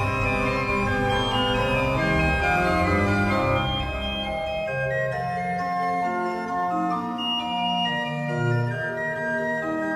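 Background music of slow, sustained keyboard chords; the deep bass notes drop away about four seconds in.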